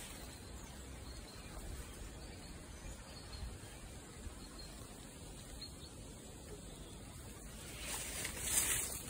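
Quiet outdoor woodland ambience, a faint steady hiss with no distinct calls; about eight seconds in, a louder burst of rustling as the phone is moved.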